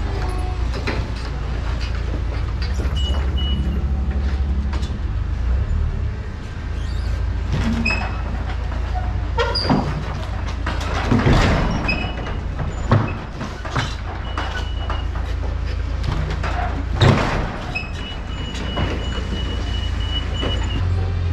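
Low, steady drone of a semi-truck's diesel engine and road noise heard inside the cab, with a few knocks and rattles, the loudest a little past the middle and again about three-quarters through.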